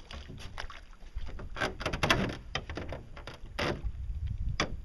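Irregular knocks and bumps on the hull and deck of a homemade pedal boat as someone clambers about on it and handles a tool.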